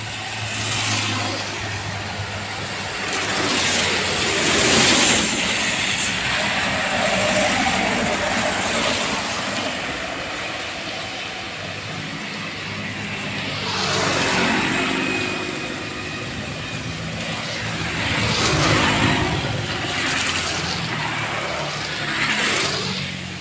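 Motor scooters and cars passing one after another on a rain-soaked road, their tyres hissing through the surface water over the engine noise. Each pass swells and fades; there are about five, the loudest about five seconds in.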